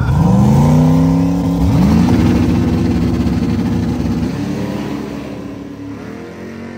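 Small-tire drag cars launching at full throttle, engine pitch climbing steeply as they accelerate away, then the sound fading with distance.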